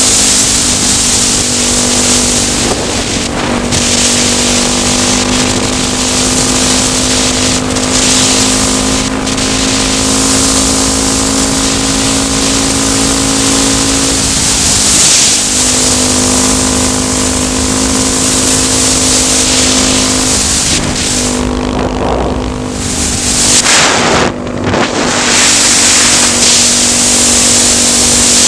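Honda XR650L's single-cylinder four-stroke engine running at a steady cruise on the road, under heavy wind noise on the microphone. The steady engine note breaks off briefly about halfway through and twice more near the end.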